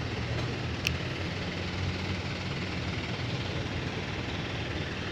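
Boom truck's engine running steadily with a low hum, and a brief click about a second in.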